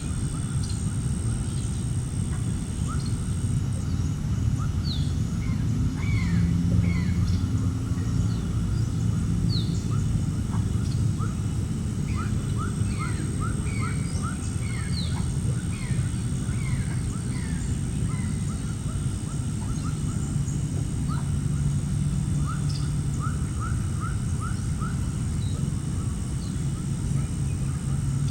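Birds calling outdoors: many short, quick falling chirps in loose runs, over a steady low rumble.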